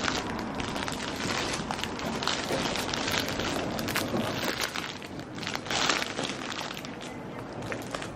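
Plastic-wrapped flower bouquets rustling and crackling irregularly as they are handled, with a louder patch about six seconds in, over a steady low shop background.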